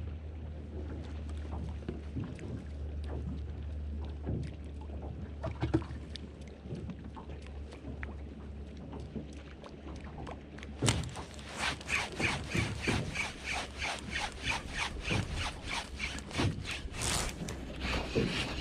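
Low steady hum of a fishing boat with scattered knocks and taps. About eleven seconds in, a fast, even run of clicks begins, several a second, and carries on nearly to the end.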